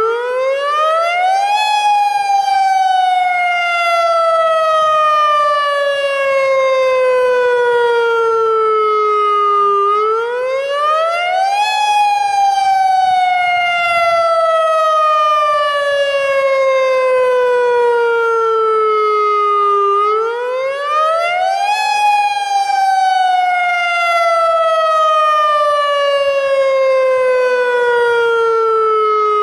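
Federal Signal Modulator AHAB tsunami warning siren sounding its electronic wail tone, loud. Each cycle rises quickly for about two seconds, then slides slowly down for about eight, repeating three times. This wail is the tone used to order evacuation in a real tsunami emergency.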